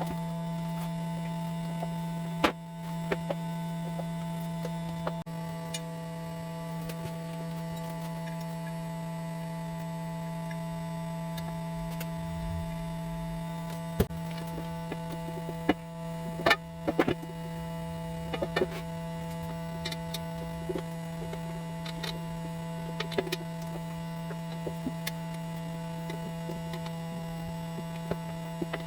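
A steady electrical hum, as from a running workshop machine or motor, with scattered sharp clicks and knocks from parts being handled, most of them in the second half.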